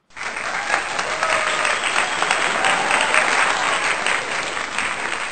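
Crowd applauding, a dense patter of many hands clapping that cuts in suddenly and fades out near the end.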